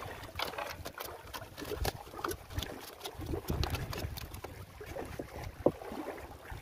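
Irregular clicks, rustles and knocks from a freshly caught tilapia being handled in a mesh net on rocks, over gusty wind on the microphone. One sharper knock comes near the end.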